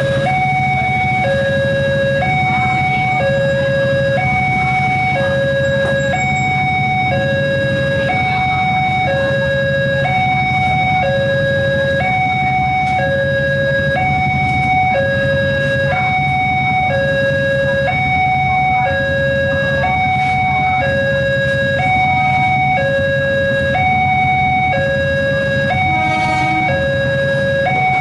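Railway level-crossing warning alarm from the loudspeaker on the signal post: an electronic two-tone signal switching between a lower and a higher note about once a second, sounding because a commuter train is approaching. Under it is the low hum of idling motorcycles and other traffic waiting at the barrier.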